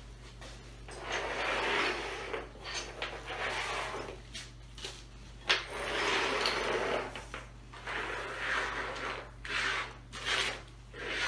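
Rummaging: rustling and light knocking as hands search through an open fabric tool bag and shift loose metal rods and plastic parts on the floor, in stretches of a second or two with short knocks between.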